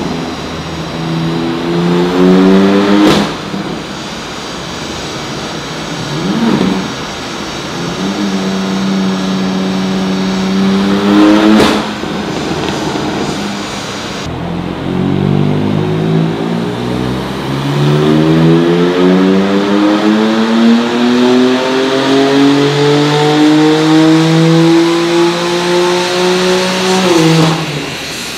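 Car engine pulling under load on a chassis dyno during a power run. The revs climb and break off sharply about three seconds in, hold steady for a few seconds, then climb in one long pull from about halfway. The pull ends abruptly near the end with a short crack as the throttle closes.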